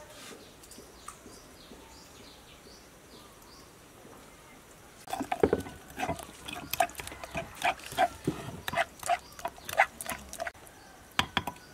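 Metal spoon scraping and clinking against the inside of a glazed clay mortar while stirring a chili dip. About halfway in, a run of short squeaky scrapes begins, roughly two a second, with two more near the end.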